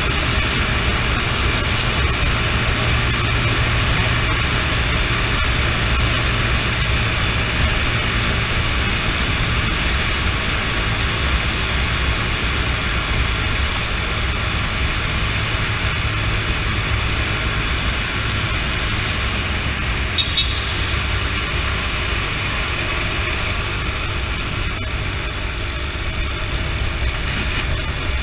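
Honda CB motorcycle running steadily at cruising speed, engine hum mixed with wind and road noise, echoing inside a road tunnel. A short high beep comes about twenty seconds in.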